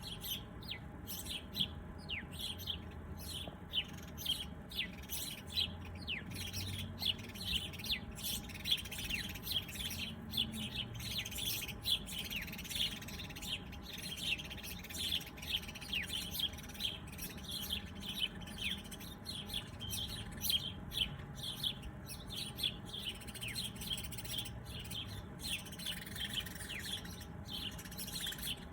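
Many small birds chirping together, short high downward-sliding chirps coming several a second and overlapping without a break.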